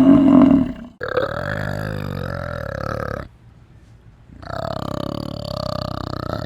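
An animal giving long, low, rough calls: one call ends about a second in, then a drawn-out call of a couple of seconds, a short pause, and another long call.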